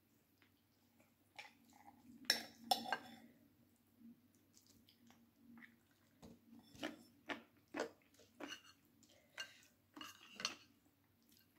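Cutlery clinking and tapping against a plate during a meal: scattered light clicks, two louder clinks about two seconds in and a quick run of them in the second half, over a faint steady low hum.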